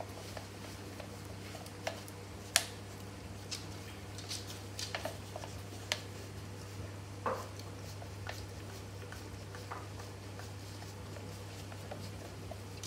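Dog licking yoghurt from a plastic cup: scattered wet licks and little taps of tongue and muzzle against the plastic, with one sharp tap about two and a half seconds in. A steady low hum lies underneath.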